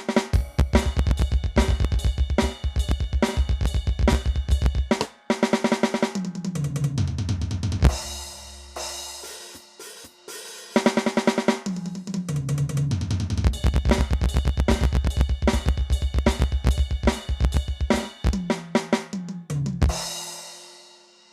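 Aroma TDX-16S electronic drum kit playing a fast drum pattern: rapid kick drum and snare strokes with cymbals, broken by two tom fills that step down in pitch. It ends on a cymbal crash that rings out.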